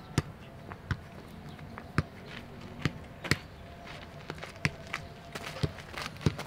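A football being kicked and juggled on a grass pitch: an irregular series of sharp thuds of foot on ball, coming closer together near the end.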